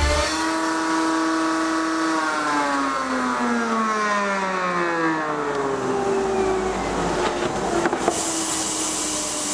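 Table-mounted wood router's motor whining steadily, then switched off and winding down, its pitch falling slowly over several seconds. A few light knocks near the end.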